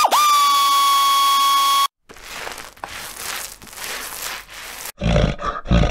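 Intro sound effects. A held electronic tone swoops up and then stays steady for about two seconds before cutting off. A crackling rustle follows, and near the end come two short, deep, roar-like growls.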